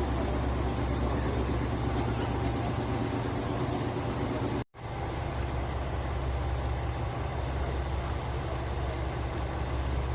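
JR Shikoku 113 series electric train giving off a steady, even mechanical hum. The sound cuts out for a moment about halfway and resumes.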